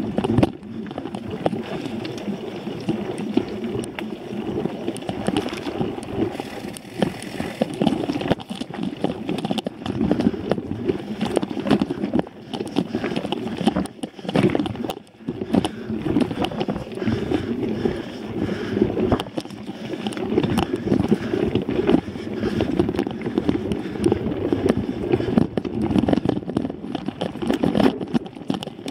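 Mountain bike ridden over a dirt singletrack, heard through an on-board action camera: steady wind rush over the microphone with frequent rattles and knocks as the bike bounces over the rough trail.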